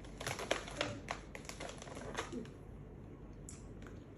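Close-up chewing of chewy dried sweet potato: a quick irregular run of wet mouth clicks and smacks for about two seconds, then only a few.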